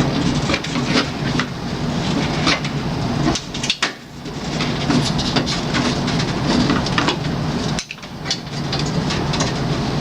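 A small power tool's motor running, with clicking and rattling over a steady hum, stopping briefly about four seconds and eight seconds in, as a fastener is spun loose on a water cooler.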